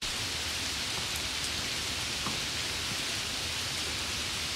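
Steady, even hiss of water, with a few faint drip-like ticks.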